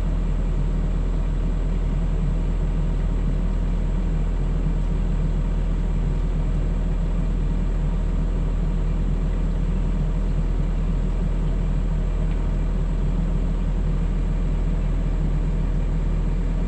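Engine running steadily at a constant speed, a low, even drone with no revving.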